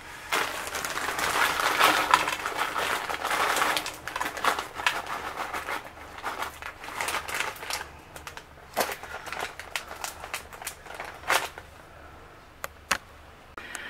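Plastic zip-top freezer bag of frozen bell peppers crinkling as it is handled, followed by scattered light clicks and knocks.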